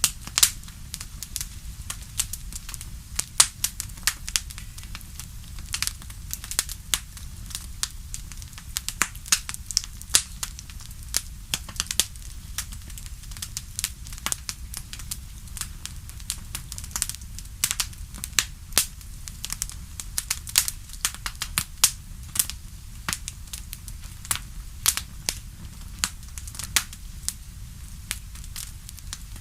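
Wood fire in a fireplace crackling, with frequent irregular sharp pops and snaps over a low steady rumble.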